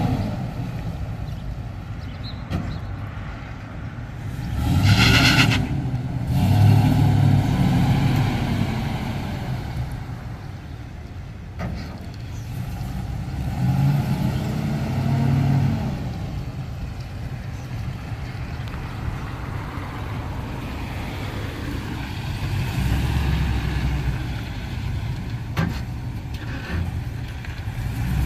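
A 2012 Ford F-250 Super Duty's 6.2-litre gasoline V8 running, its engine speed rising and falling a few times. A short burst of higher-pitched noise comes about five seconds in.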